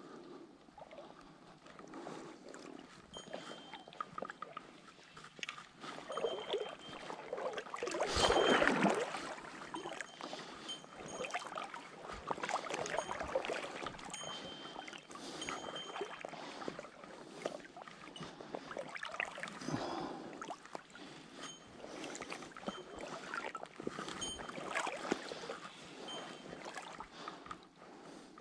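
River water sloshing and lapping close by, with scattered small knocks and splashes. It swells into a louder splash about eight seconds in.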